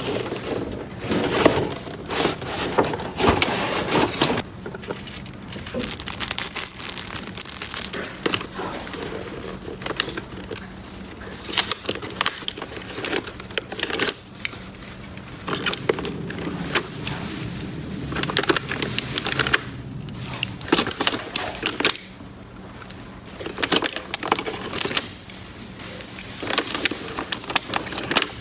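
Small plastic toy pieces being handled: irregular clicks, taps and crinkly rustling, with short pauses between bursts of handling.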